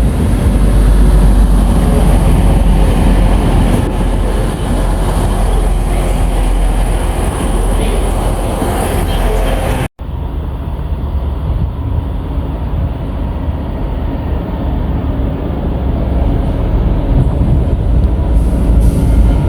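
A train running past a station platform with a loud, steady low rumble. It cuts out for an instant about halfway through, then a slightly duller rumble carries on.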